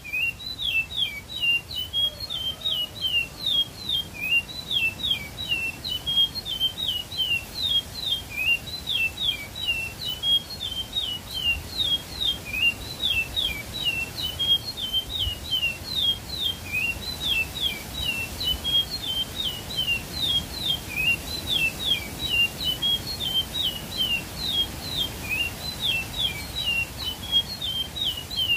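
Caged songbird singing without a break: a rapid run of short, sharp, high-pitched notes that slur downward, repeated in quick phrases.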